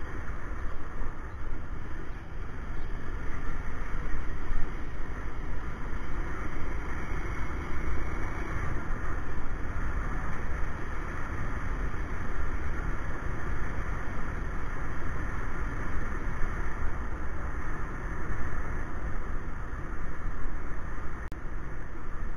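Motorcycle riding at a steady pace: the engine running under a steady rush of wind noise on a bike-mounted action camera's microphone.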